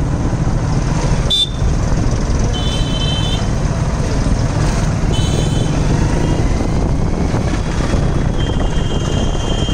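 Vehicle engine running with a steady low rumble, heard from the cab, while horns honk in street traffic: a brief blast about a second in, short honks around three and five seconds in, and a longer held honk near the end.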